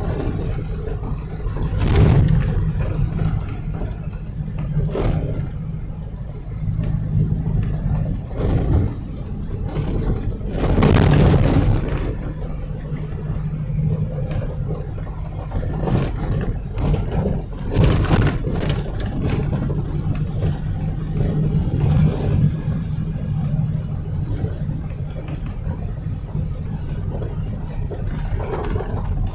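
Vehicle driving along a rural road: a steady low engine and road drone, with brief swells and knocks every few seconds and one longer swell about a third of the way through.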